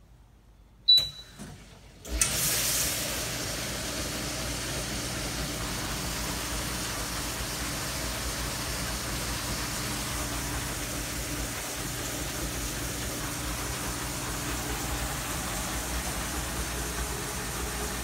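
Hobart LXiH undercounter dishwasher: a short, high beep about a second in, then about a second later the wash cycle starts, with the wash pump running and water spraying inside the cabinet as a steady rushing noise over a low hum.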